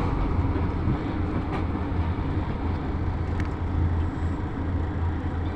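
A heavy vehicle passes very close: its engine gives a steady low hum over tyre and road noise, with two faint clicks.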